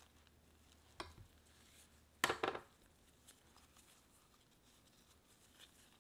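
Steel hand-mixer dough hooks knocking against a glass mixing bowl: one tap about a second in, then a louder cluster of two or three clinks a little past two seconds. Faint rustling of gloved hands working sticky dough between the knocks.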